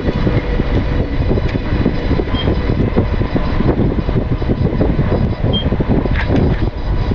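Wind buffeting the microphone while riding an electric bike: a dense, loud, low rumble, with a short high beep about every three seconds.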